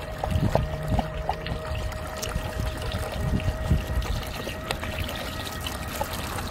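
Water trickling steadily from a dog-park drinking fountain into the metal dog bowl at its base.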